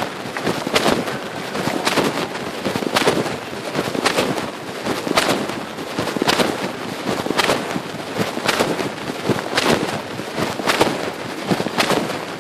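Phone microphone rubbing and scraping against the inside of a pocket while the wearer walks: crackling fabric rustle with a louder scrape about once a second, in time with the steps.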